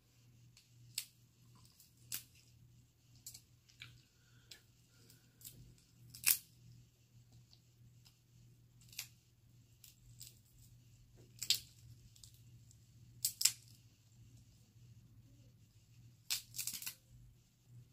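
Dungeness crab shell being cracked and picked apart by hand: scattered sharp cracks and snaps, with the loudest about six seconds in, two more past the middle, and a quick run of them near the end.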